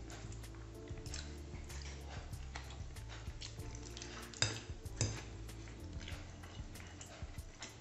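Metal fork scraping and clicking against a ceramic plate while scooping up tortellini in cream sauce, with two sharper clinks about four and a half and five seconds in. Soft background music with sustained low notes plays underneath.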